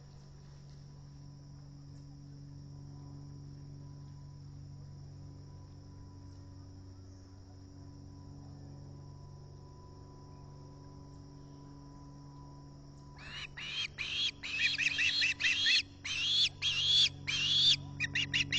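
Faint steady high insect trill, then, about two-thirds of the way in, an osprey breaks into loud, repeated high chirping calls that come faster toward the end, typical of an osprey soliciting food.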